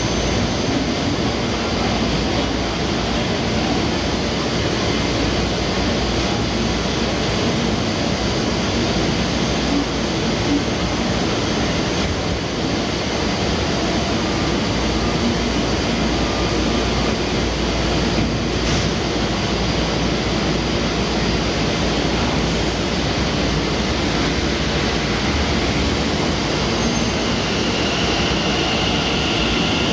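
Steady rumble and hiss of a Taoyuan Airport MRT express train at the station platform, running evenly with no music or chimes.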